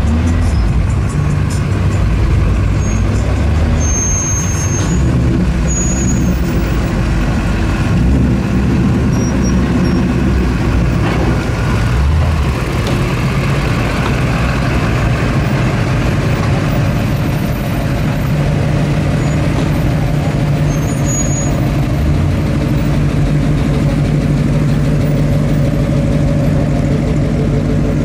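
Cars and pickup trucks rolling slowly past with their engines running: a steady low engine rumble.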